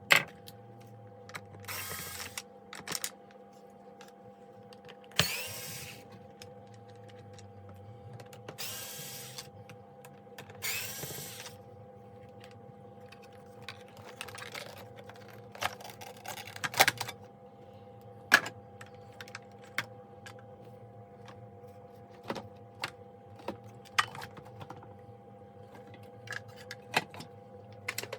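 A small power screwdriver running in several short bursts, each under a second, among frequent clicks and knocks of plastic parts and screws being handled as a plastic vacuum cleaner casing is taken apart.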